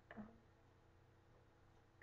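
Near silence: room tone with a faint steady hum, broken just after the start by one short murmured syllable of a woman's voice.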